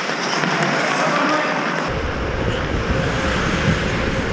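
Ice hockey play heard through a camera microphone: a steady noisy hiss of skates and play on the rink. About two seconds in, a deeper rumble cuts in abruptly as the footage switches to another camera.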